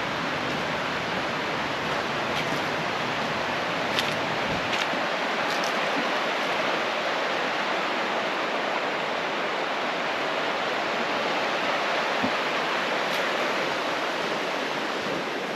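Waterfall and river rapids rushing, a steady, even roar of water.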